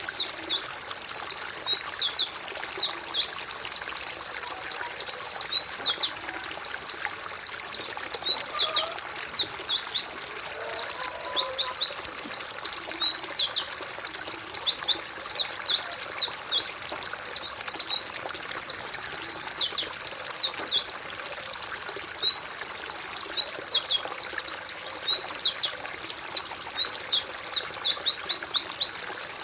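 White-eyes (pleci) chirping without a break: a dense stream of short, high, thin notes that drop steeply in pitch, many of them overlapping.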